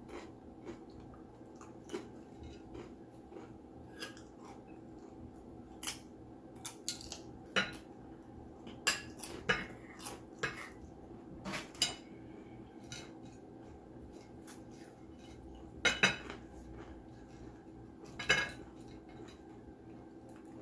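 Scattered sharp clinks and clatter of cutlery against dishes while eating, about a dozen irregular strikes, the loudest two near the end, over a faint steady hum.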